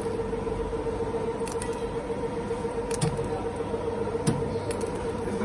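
Steady hum of a 25-ton vertical injection molding machine standing idle, with a few sharp clicks as scissors snip metal crimp terminals off their carrier strip.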